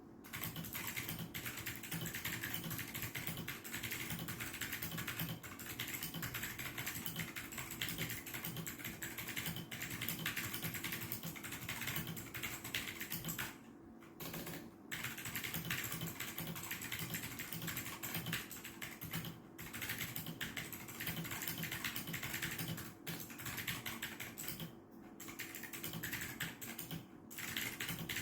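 Fast, continuous typing on a Gamen Titan V mechanical keyboard: a dense clatter of key clicks, broken by a few short pauses, the longest about halfway through.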